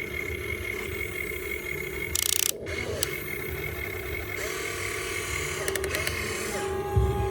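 Small electric motors and gearboxes of a Huina 1592 radio-controlled excavator whining steadily, the pitch changing a few times as different functions run. A brief hiss about two seconds in.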